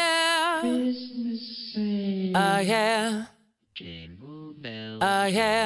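Music: wordless singing in long held notes with a strong, wavering vibrato. The sound cuts out briefly about three and a half seconds in, then pitch-bending notes carry on.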